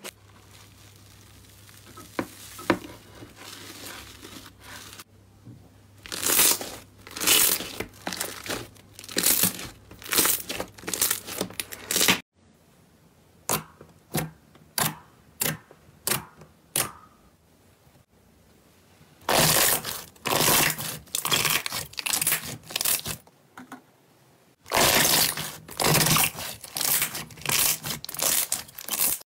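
Hands squeezing, pressing and poking slime: a long run of short squelching, crackling bursts, each a second or less, with a quieter stretch of single sharp pops about halfway through.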